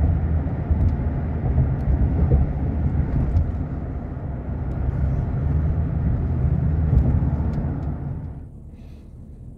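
Steady low rumble of a moving vehicle, dropping to a quieter hum about eight seconds in.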